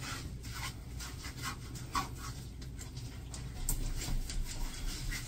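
A rubber grooming brush rubbing over a wet dog's short coat in short, irregular strokes, pulling out loose shedding hair.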